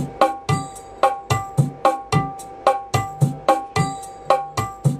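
Dangdut music played back through loudspeakers driven by a power mixer: a steady rhythm of sharp drum strikes, about three to four a second, each with a ringing pitched tone.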